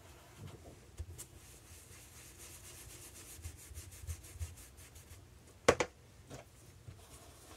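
Round foam ink-blending tool rubbed in quick, soft strokes over watercolour paper, colouring its edges with ink. A sharp knock about three-quarters of the way through, as the tool is set down on the craft mat, and a lighter tap just after.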